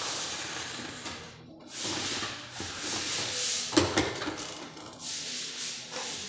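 A long straightedge rasps back and forth across a plaster of Paris ceiling, scraping and levelling the plaster in repeated strokes, with a short pause about a second and a half in. Two sharp knocks near four seconds in are the loudest sounds.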